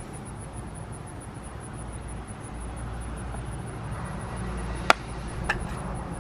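Knife blade being struck into a wooden stick to cut a notch: two sharp knocks about five seconds in, half a second apart, the first the loudest, over a steady low outdoor rumble.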